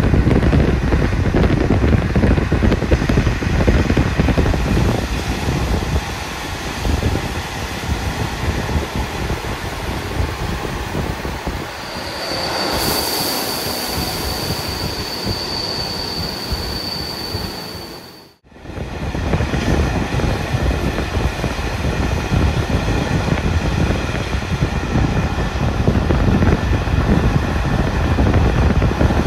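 Passenger train coach running on the rails, heard through an open window: steady wheel and rail rumble. From about twelve seconds in, the brakes squeal in one high steady tone as the train slows into a station; the sound then cuts off suddenly and comes back with the train running again.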